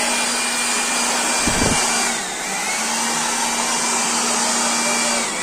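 Handheld electric air blower running with a steady rush of air, a hum and a high whine. Its speed sags briefly and recovers about two seconds in and again near the end. A short low thump comes about one and a half seconds in.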